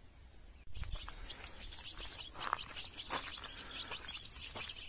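European goldfinches twittering in quick, high chirps, starting abruptly about a second in, with scattered sharp clicks and rustles close by.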